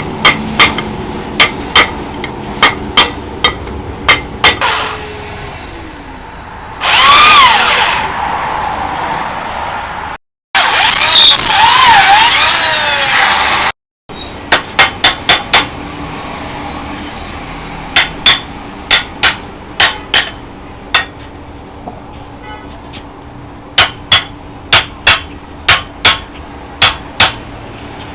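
Hammer blows on metal in runs of quick, evenly spaced strikes, about two to three a second. Twice in the middle a power tool runs loudly with a wavering whine before the hammering resumes.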